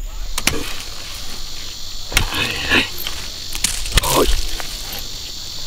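A steel hoe chopping into dry soil several times, with a scatter of earth and clods after the strikes. A steady high-pitched insect chorus runs underneath.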